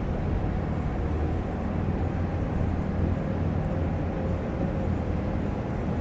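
A heavy machine's diesel engine running steadily with a constant low hum.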